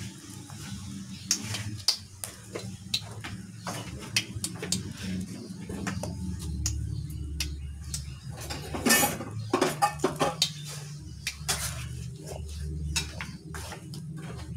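Kitchen handling noise: scattered light clicks and knocks as raw chicken pieces are moved about in a plastic bowl and lime is squeezed over them, with a denser, louder cluster about nine seconds in, over a steady low hum.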